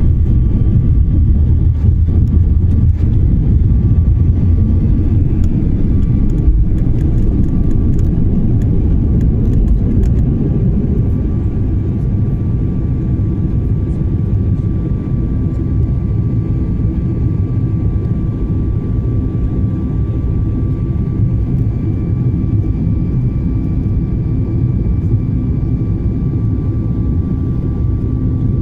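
Airliner jet engines heard from inside the cabin during take-off: a loud, steady low rumble with a thin steady whine over it, easing slightly after about ten seconds. A few faint ticks or rattles come through a few seconds in.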